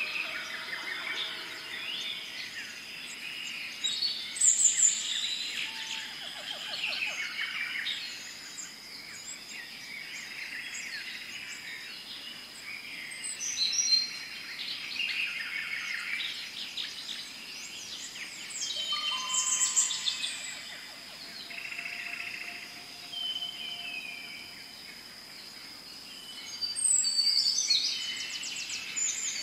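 Many birds chirping, trilling and calling in overlapping flurries over a steady high insect-like drone, a jungle ambience.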